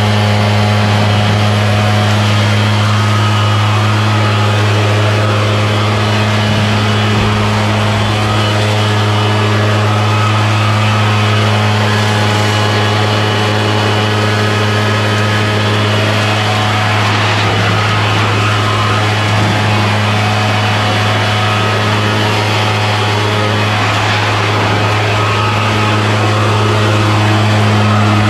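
Backpack leaf blower's two-stroke engine running at a steady, unchanging speed, blowing leaves.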